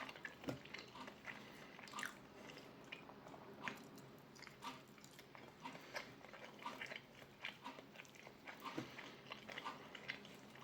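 A person eating an omelette, chewing with soft, irregular clicks and mouth sounds.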